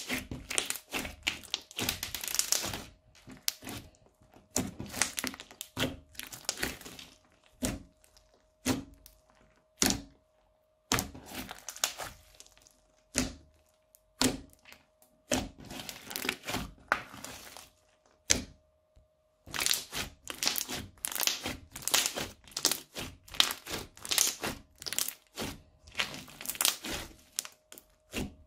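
Hands squeezing and pressing crunchy slime mixed with foam beads, giving irregular bursts of sharp crackles, pops and squelches with short pauses between handfuls.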